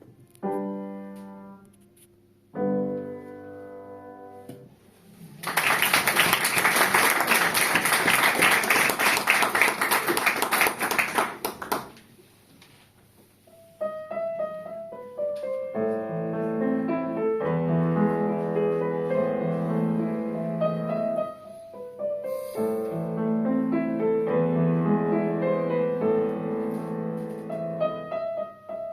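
Acoustic piano notes fade out, then an audience applauds for about six seconds. After a short pause the piano starts again with a steady run of notes.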